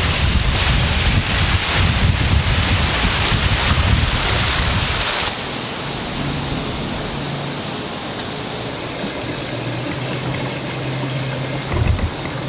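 Wind buffeting the camera microphone, a steady rushing noise with a low rumble. About five seconds in it cuts off abruptly to a quieter steady outdoor hiss with a faint low hum.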